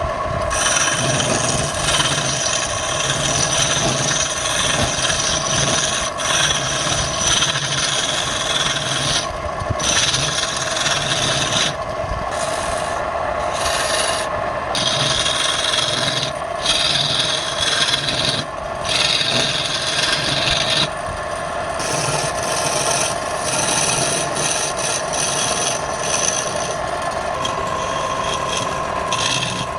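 Wood lathe running, with a steady motor tone under a scraping hiss from a tool or abrasive worked against the spinning wood. The scraping breaks off briefly several times as the contact is lifted.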